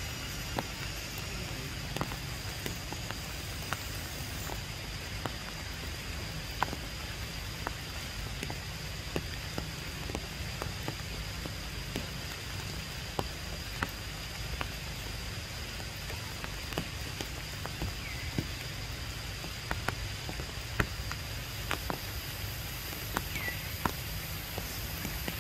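Steady rain falling through tree foliage, with irregular sharp taps of drops hitting leaves and branches. A thin, steady high whine runs underneath.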